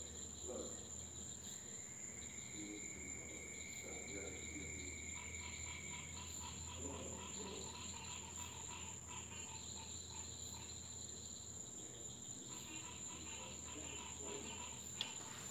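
Night chorus of insects and frogs: a steady high-pitched insect drone, joined by a held tone for a few seconds and then a fast pulsing trill about five seconds in.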